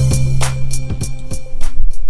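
Music with a steady drum beat over held low bass notes.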